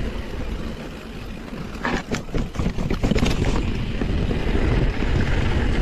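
Wind buffeting the microphone of a mountain bike riding down a rough dirt trail, with a cluster of rattles and knocks about two seconds in as the bike jolts over the ground.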